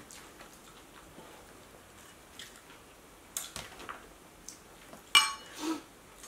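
Close-miked mukbang table and eating sounds. Crispy, pan-fried tortillas are torn and handled and toppings are picked from a bowl, giving scattered soft clicks and crackles, with a louder sharp sound about five seconds in.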